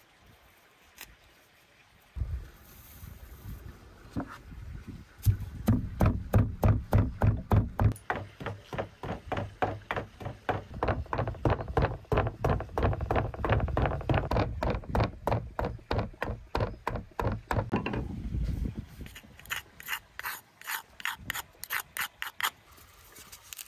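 Wooden pestle pounding rosemary in a wooden mortar: a long run of rapid, even thuds, several a second. Near the end come lighter, sharper wooden taps as the mortar is emptied of the ground herb.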